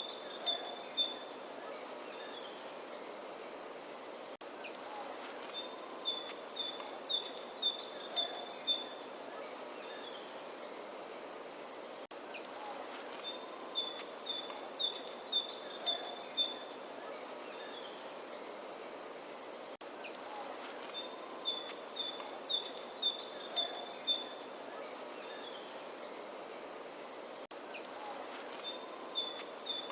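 Birdsong from a single songbird: a phrase of a few quick falling whistles, then a run of short notes alternating between two pitches, repeated identically about every eight seconds as if looped, over a steady outdoor hiss.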